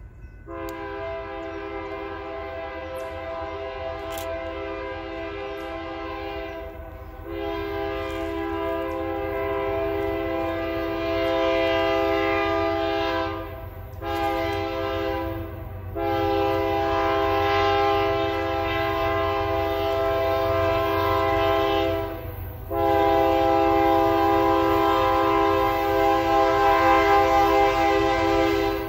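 Diesel freight locomotive's multi-note air horn sounding as the train approaches. It gives two long blasts, a short one and two more long ones, growing louder as the locomotive nears. This is the standard grade-crossing signal.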